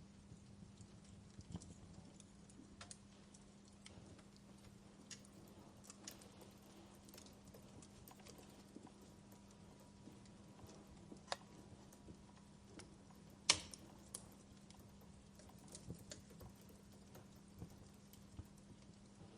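Wood fire crackling faintly: irregular small pops and snaps, the loudest one about thirteen seconds in, over a steady low hum.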